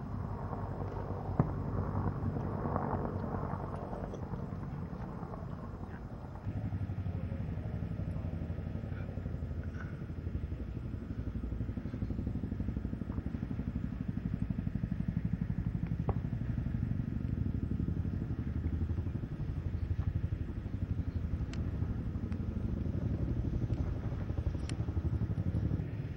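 A vehicle engine running steadily with a low rumble, and one sharp knock about a second and a half in.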